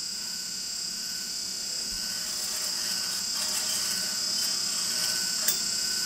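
A steady high-pitched hiss, with faint scraping and a small click near the end, as a twisted stainless-steel turbulator strip (a 'swizzle stick') is drawn out of a secondary heat exchanger tube.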